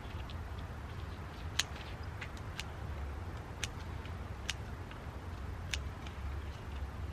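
Scissors snipping through coleus stems while taking cuttings: a sharp click with each cut, about five cuts roughly a second apart, with a few fainter snips between.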